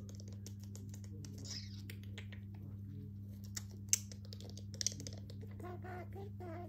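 Budgie's beak tapping and nibbling in quick, irregular little clicks, with two sharper clicks about four and five seconds in. A steady low hum runs underneath.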